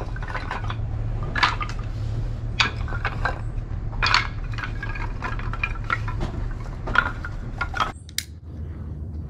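Short pieces of dry kindling wood knocking and clattering against each other as they are stacked into a steel fire pit, a sharp clack every second or so over a steady low rumble.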